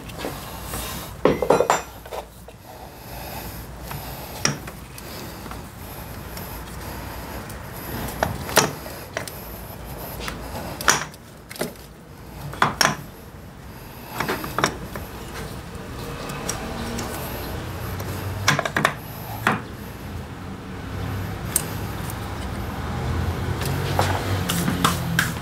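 Scattered metallic clicks, clinks and knocks as a starter motor is seated against a Honda Silver Wing 600 scooter engine and its bolts are worked in with hand tools.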